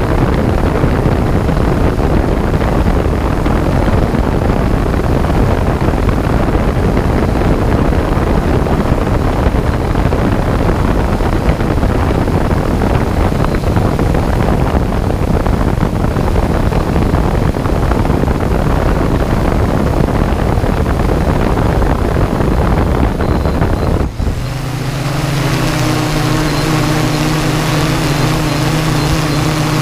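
Wind rushing over the microphone of a camera aircraft in flight, with a steady low rumble. About 24 seconds in, the wind noise drops suddenly and a steady motor-and-propeller hum with several pitches comes through.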